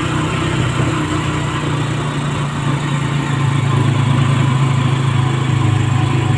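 Vehicle engine running steadily while travelling, with a road and wind hiss over it. The low engine drone grows louder about halfway through.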